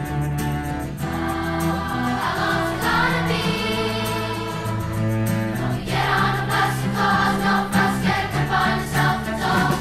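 Music: a children's choir singing a sustained melody over instrumental backing.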